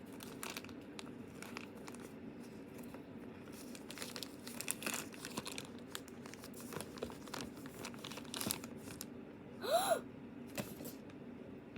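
Blind-box packaging bag crinkling and tearing as it is opened by hand, with irregular crackles throughout. A brief squeak that rises and falls in pitch comes near the end.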